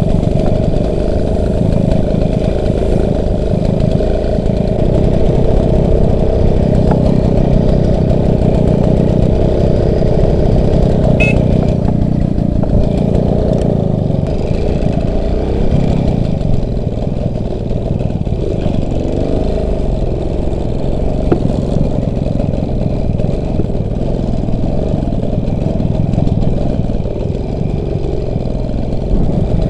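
Motorcycle engine running under way, steady, with the revs rising and falling a few times a little past the middle.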